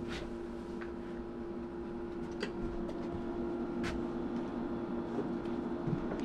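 Sungold Power SP6548 48 V all-in-one solar inverter humming steadily as it powers up, with a few sharp clicks.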